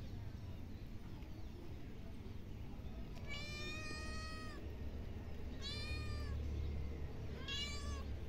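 Young spotted tabby cat meowing three times: one long, drawn-out meow about three seconds in, then two shorter meows, the last near the end.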